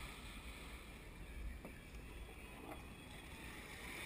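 Choppy sea water lapping and splashing against a kayak's hull, with a low rumble of wind on the microphone.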